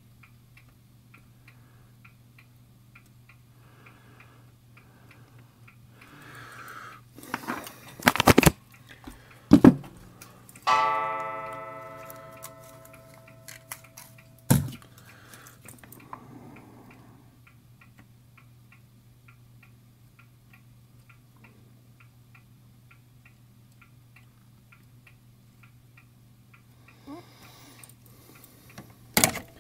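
A clock ticking about twice a second over a low steady hum. In the middle come a few loud knocks and a ringing tone that starts loud and dies away over about four seconds, and there are more knocks near the end.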